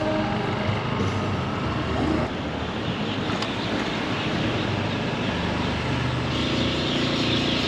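Honda Click 160 scooter on the move: its small engine runs steadily under wind rush on the microphone, and the wind hiss grows stronger a little after six seconds in.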